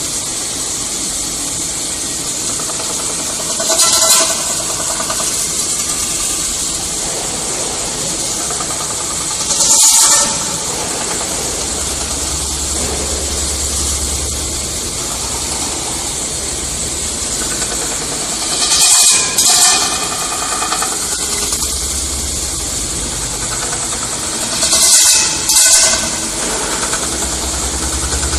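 CNC metal spinning machine running, with a steady mechanical hiss and four short, louder hissing surges, the last two in quick pairs. A low hum comes and goes in the second half.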